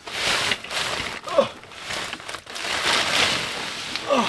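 Plastic storage bag and duvet rustling and crinkling as bedding is pulled out of an under-seat storage box and heaved about, with a couple of short falling squeaks.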